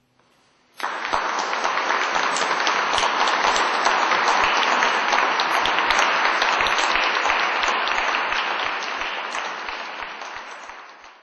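Audience applauding, starting suddenly about a second in after a brief hush. It holds steady, then thins and fades near the end before cutting off.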